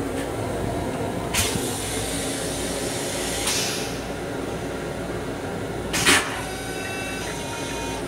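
Stainless-steel toilet in an M7 railcar restroom flushing: a short, loud whoosh about six seconds in as the bowl empties, followed by a few faint steady tones. Two briefer hisses come earlier, over the steady hum of the moving train car.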